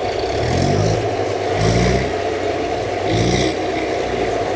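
Diesel engine of a Kubota rice combine harvester stuck in deep mud, running hard with three rising rev surges about a second and a half apart as it strains, and fails, to climb out under tow.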